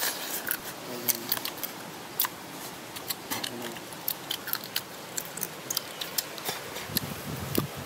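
Shrimp shells being cracked and peeled by hand and bitten, with chewing and lip-smacking: irregular crisp clicks and crackles.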